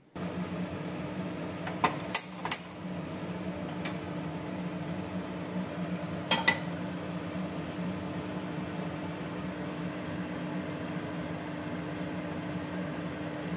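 A steady low hum, with sharp metallic clinks of a stainless steel pot being handled on the stovetop: a cluster about two seconds in and another pair around six and a half seconds.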